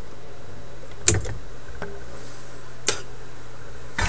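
Two sharp clicks about two seconds apart from hand tools working on a record player chassis, then a short clatter near the end, over a steady low hum.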